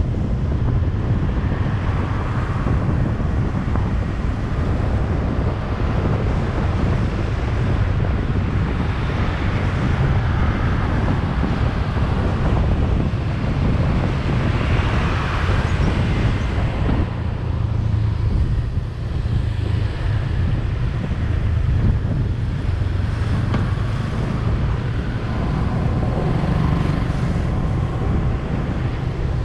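Steady low rumble of a vehicle driving along a road, with wind buffeting the microphone.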